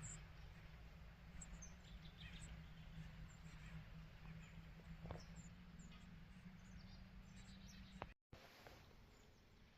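Faint, scattered bird chirps over a low, steady background hum, with a brief dropout a little after eight seconds, after which only a quieter hush remains.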